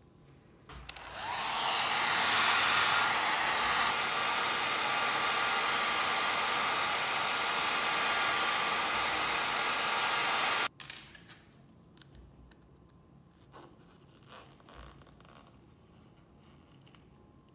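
Hot-air blower switched on just under a second in, running with a steady hiss for about ten seconds, then switched off abruptly, used to soften the adhesive for opening an iPhone 7 Plus. A few faint handling clicks follow.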